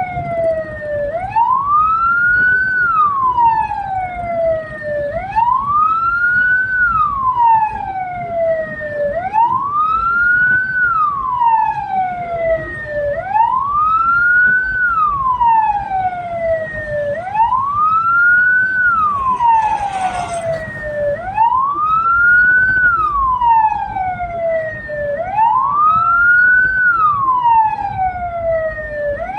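Hearse's siren wailing steadily, each cycle a quick rise then a slow fall, about once every four seconds, over the low rumble of the moving vehicle. A brief burst of noise cuts in about two-thirds of the way through.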